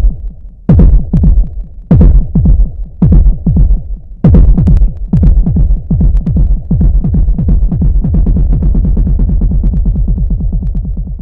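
Electronic dance music with heavy deep bass: repeated bass hits that fall in pitch. About four seconds in, the hits speed up into a fast continuous run that slowly grows quieter.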